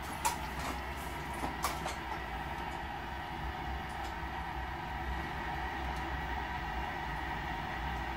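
A few clicks from the control knobs of a 1958 Admiral tube television being turned: a sharp one just after the start and two more about a second and a half in, over a steady low hum.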